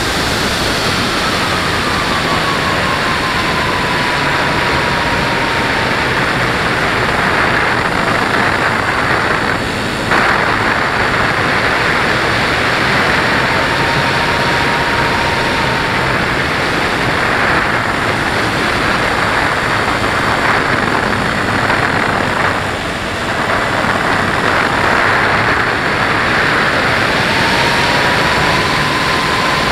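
An FPV model aircraft's motor and propeller running in flight: a loud, steady rushing noise with a faint whine that slowly rises and falls in pitch. The noise dips briefly twice, about ten seconds in and again near twenty-three seconds.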